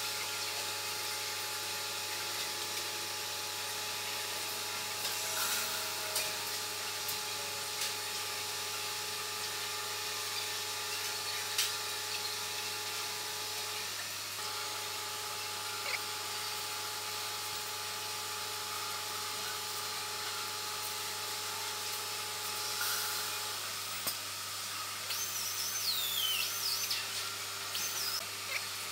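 Metal laser melting machine running: a steady machine hum and hiss with a few held tones that break off briefly about halfway and stop about two-thirds of the way through. Occasional light clicks, and some wavering high squeaks near the end.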